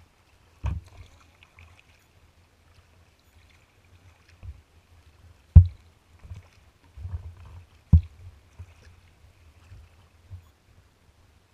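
A kayak being paddled on calm water: faint paddling and water noise, broken by three sharp knocks on the hull, about a second in, at about five and a half seconds and at about eight seconds, with a few softer knocks between.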